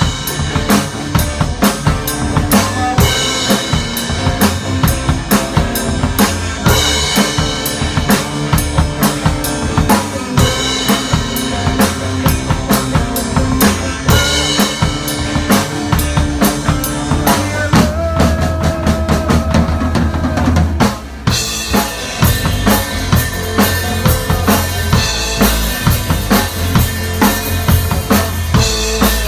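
Music driven by a full drum kit playing a steady beat, with pitched instruments over it and a short break about two-thirds of the way through.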